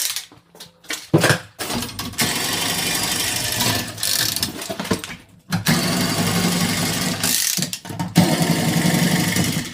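A power tool running in two long runs of about four seconds each, with a short gap between them and a few brief blips at the start.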